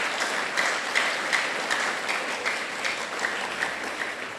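Audience applauding, many hands clapping at once, the applause slowly dying down toward the end.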